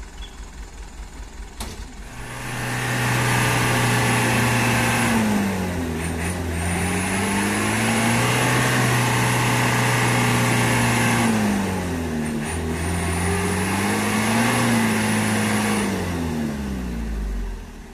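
Heavy truck diesel engine revving hard under load, straining to pull out of deep mud: it idles briefly, then holds high revs in three long pushes that sag and rise again, with a thin high whistle over the revs, before falling back to idle near the end.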